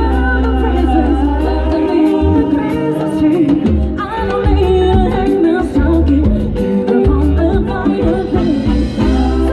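Live band music with a singer: held bass notes under a wavering sung melody, with regular percussion ticks, in a Latin style.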